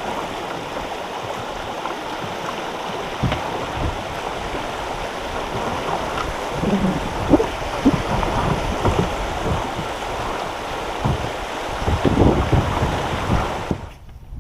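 Creek water running steadily, with wind gusting on the microphone in irregular low rumbles. The sound drops off abruptly near the end.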